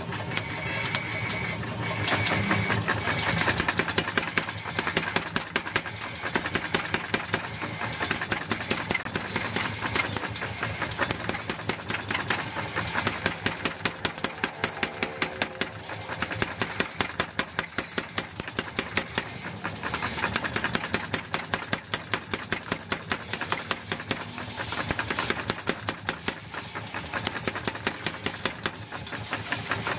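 Power hammer pounding a red-hot steel axe head in rapid, steady blows.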